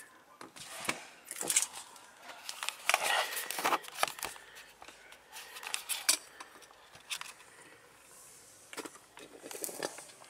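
Clear plastic sheeting crinkling and rustling as it is handled and pulled aside, in irregular bursts with scattered sharp clicks and knocks.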